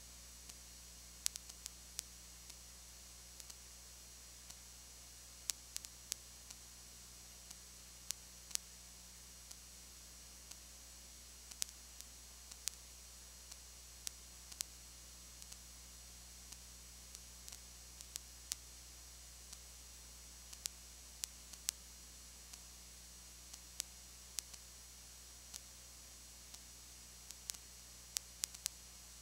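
No game sound: a steady low hum and high hiss of an otherwise empty audio track, with irregular sharp clicks and crackles, about one or two a second.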